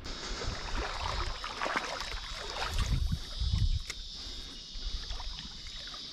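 A steady, high-pitched insect drone, with irregular scuffing and rustling over the first four seconds and a sharp click about four seconds in.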